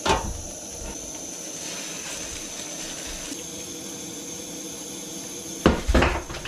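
A steady hiss with a sharp knock at the start; about five and a half seconds in, a knife drops and clatters in a quick cluster of hits, hard enough to break off its tip.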